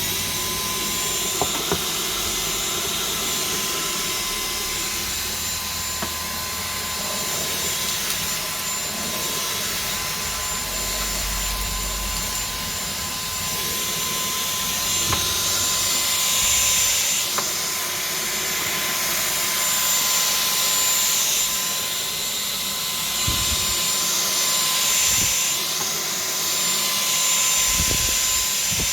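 WeClean 20V cordless vacuum cleaner running steadily with a high motor whine. The rushing noise swells and fades as it sucks up pebbles, stones and grit, with a few sharp ticks.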